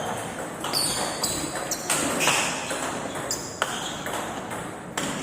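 Table tennis ball clicking off paddles and the table during a rally: a series of sharp clicks at uneven intervals, with voices talking in the background.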